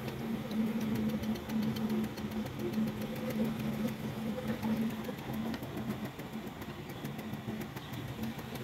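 A motor running steadily, with a low, even hum.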